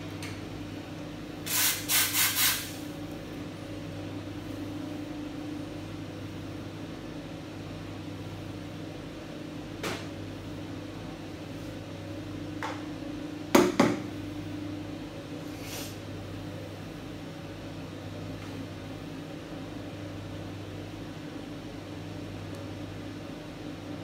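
Espresso machine steam wand purged in four quick hisses of steam about two seconds in. Later come a few knocks and a loud double clack of cup and milk jug handling on the stainless steel machine, over a steady low hum.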